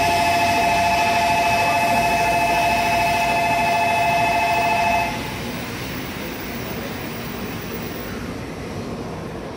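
Shinkansen platform departure bell ringing as an electronic bell for about five seconds, then cutting off sharply, the signal that the doors are about to close. A steady platform and train hum continues after it stops.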